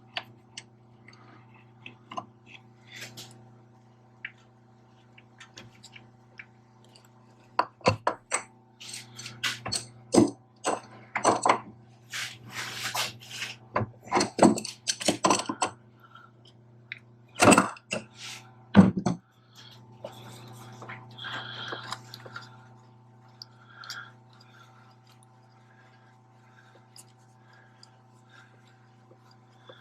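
Hand tools clinking, knocking and scraping on metal hose fittings in irregular bursts, busiest in the middle, over a steady low hum.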